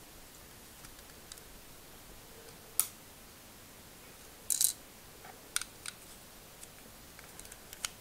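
Plastic Lego bricks and plates clicking and clattering as a brick-built puzzle box is handled and pieces are slid out: a few sharp separate clicks, the loudest a quick cluster about halfway through.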